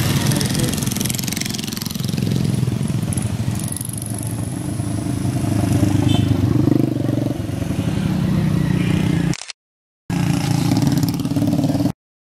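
Small motorcycle engines running as motorcycles and a motorcycle-sidecar tricycle pass along the road, the engine sound swelling about six to nine seconds in. The sound drops out for a moment near the end, comes back briefly, then stops abruptly.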